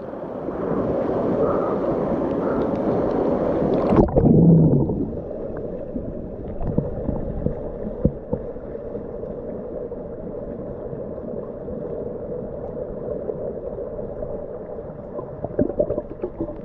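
Rushing water of a waterfall pool, then a splash about four seconds in as the camera microphone goes under the surface. After it the falling water is heard underwater as a muffled, dull, steady rumble with the hiss gone.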